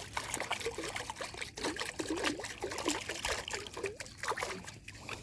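Water trickling and gurgling, with many small irregular splashes and bubbly blips.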